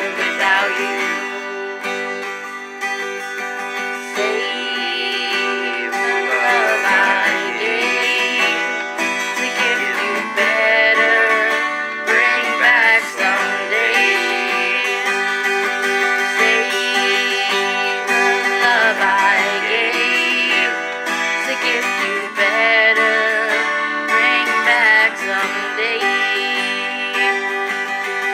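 Acoustic guitar strummed steadily, with a woman's voice singing a melody over it.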